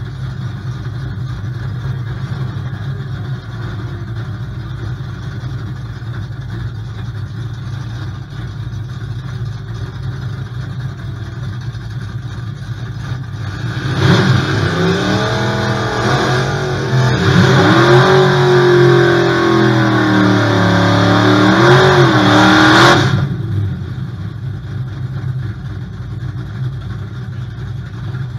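Big-block V8 idling with a steady low rumble, heard from inside the car. About halfway through, a drag car's engine is revved hard and held high for about nine seconds under a loud rushing hiss of spinning tyres, a burnout, then cuts off suddenly back to the idle.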